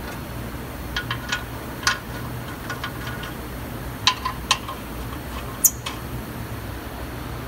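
Irregular light metallic clinks and ticks of hand tools and bolts as transmission mounting bolts go back in by hand. A few clinks ring briefly, the sharpest about two, four and five and a half seconds in, over a steady low hum.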